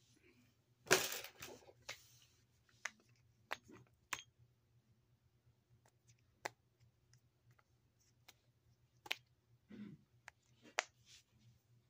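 Small fidget toys being handled and set down: scattered sharp clicks and light clatters, with a louder clatter about a second in.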